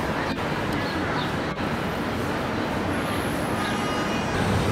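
Outdoor city ambience: a steady rumble of distant road traffic.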